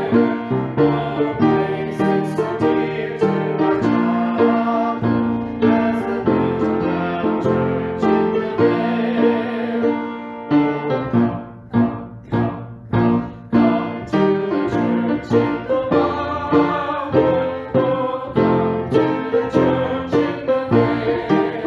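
Piano music, with a quieter stretch of separately struck chords around the middle.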